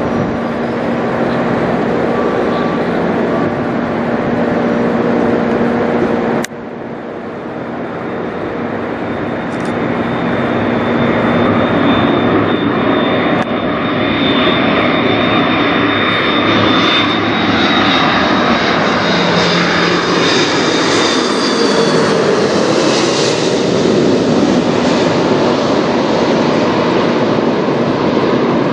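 Jet airliner flying over on approach: steady engine noise, a sudden break about six seconds in, then the engine noise builds again with a high whine, loudest about three-quarters of the way through before easing slightly.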